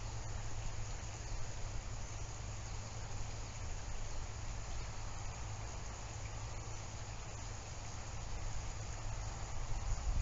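Steady outdoor ambience: an even hiss with a low rumble underneath.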